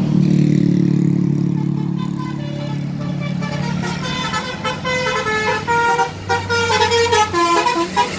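A passing bus's deep, steady drone, then from about three and a half seconds in a telolet horn, a multi-tone bus horn, playing a quick tune of short notes that step up and down in pitch.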